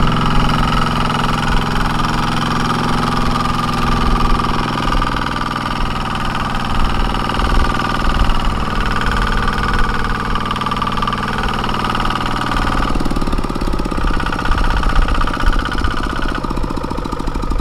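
Single-cylinder diesel engine of a two-wheel walking tractor running steadily under load as it pulls a loaded trailer through mud. Its sound shifts about thirteen seconds in.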